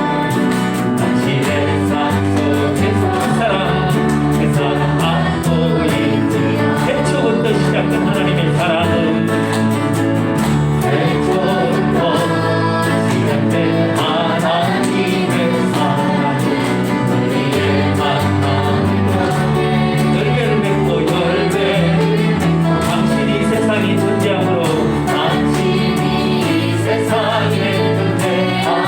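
A group singing a praise song over instrumental accompaniment, with a bass line that changes note every second or two.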